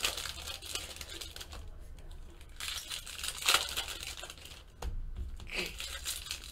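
Foil baseball-card pack wrappers being torn open by hand, with crinkling of the foil, in several short rips, the loudest about three and a half seconds in.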